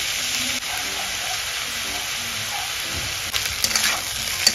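Fried rice with chicken and vegetables sizzling steadily in hot oil in a black iron kadhai, with soy sauce freshly poured over it. About three seconds in, a metal spatula starts stirring and scraping through the rice, adding short scratchy strokes over the sizzle.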